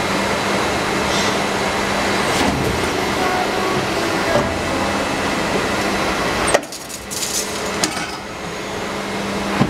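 Plastic injection moulding machine running with a steady hydraulic hum. About two-thirds of the way in the hum drops off with a sharp clack as the shot of moulded spoons is ejected and falls free of the mould, and a few more clacks follow.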